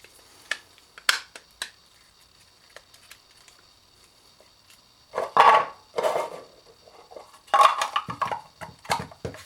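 Hard plastic and metal parts clicking and clattering as they are handled on a workbench. There are a few sharp clicks in the first two seconds, then two louder bursts of clatter, one about halfway through and one near the end.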